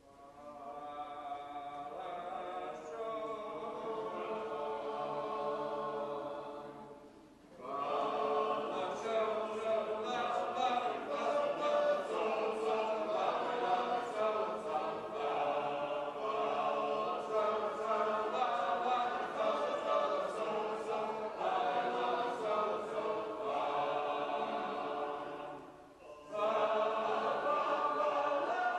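Shape-note singers, a cappella group singing in parts. A held chord opens it for several seconds. After a brief break the full group sings on, with another short pause near the end.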